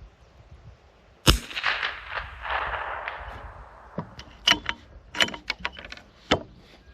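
A single .22 LR rifle shot from a custom Desert Precision benchrest rifle about a second in, a barrel-warming shot, followed by a lingering echo. A few seconds later comes a run of sharp metallic clicks as the bolt is worked.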